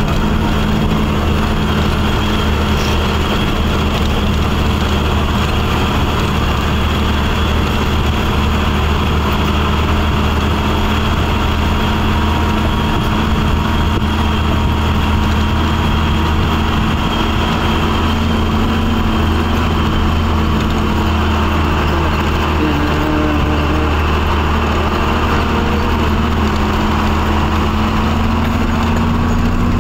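Truck engine running steadily, a low even drone with no change in revs.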